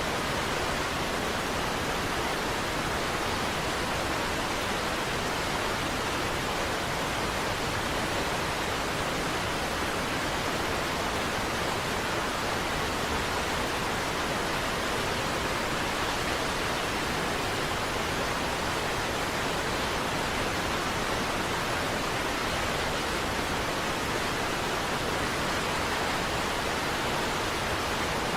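Niagara Falls waterfall: a steady, unbroken rush of falling water that does not change.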